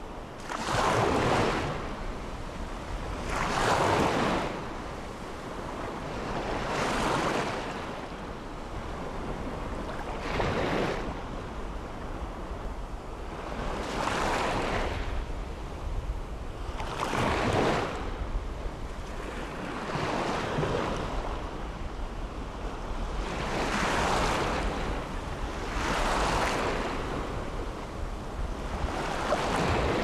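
Small waves breaking on a sandy beach, each a rush of surf that swells and falls away, a new one every three seconds or so.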